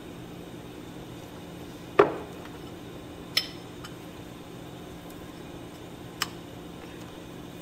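Glass and kitchenware clinking: one loud knock with a short ring about two seconds in, then two lighter clinks, over a steady low hum.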